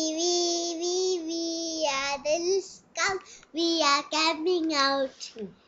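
A young boy singing a children's song: he holds one long note for about two seconds, then sings a run of shorter notes with brief gaps between them.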